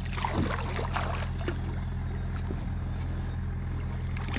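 Water splashing and lapping around a small aluminium fishing boat, with a few soft knocks, over a steady low hum.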